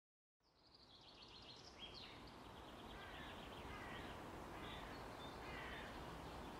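Small birds chirping and trilling over a low, steady outdoor background noise, fading in from silence just after the start.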